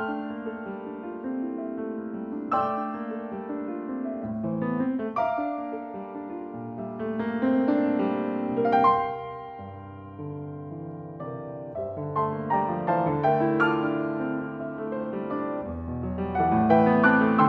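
Solo piano playing a toccata: dense, overlapping runs of notes that swell to a loud peak about nine seconds in, fall back, then build again to the loudest passage near the end.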